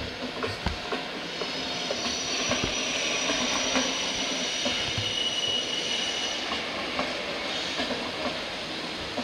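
Deutsche Bahn Intercity passenger coaches rolling past, wheels clacking irregularly over rail joints and points. A high steady squeal from the wheels comes in about a second and a half in and dies away after about six seconds.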